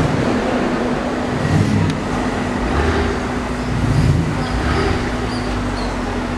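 Road traffic noise: a steady engine rumble that swells a few times, under a constant low hum.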